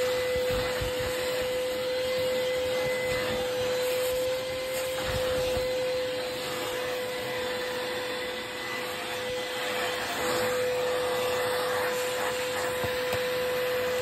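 Vacuum cleaner running steadily with a crevice nozzle, sucking crumbs and debris off a fabric sofa cushion; its motor gives a steady whine over the rush of air.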